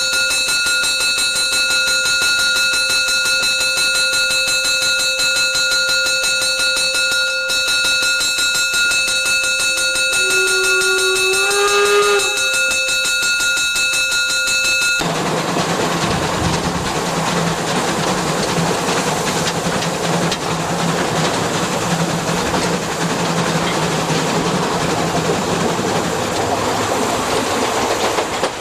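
A bell rings continuously, with a short, slightly rising steam whistle about ten seconds in. About fifteen seconds in the ringing cuts off abruptly, and the sound becomes the narrow-gauge steam train running: a steady rumble and clatter of the locomotive and its wheels on the track.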